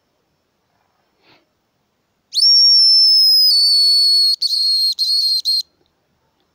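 Homemade brass-tube hazel grouse call blown to imitate the bird's song: one long, very high, pure whistle that rises at the start, holds, steps slightly lower about a second later, then breaks into three short notes and stops.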